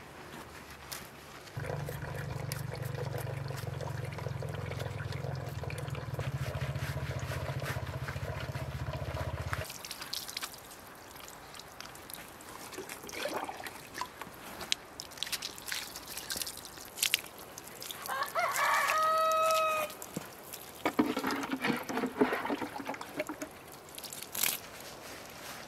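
A rooster crows once, a long call a little past the middle, the loudest sound here. Around it come splashing and dripping as water is poured over a wet puppy being washed. A steady low hum runs through the first several seconds and cuts off suddenly.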